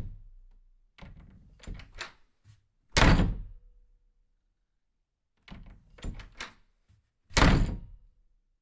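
A series of heavy thuds: three loud ones about four seconds apart, with several lighter knocks between them.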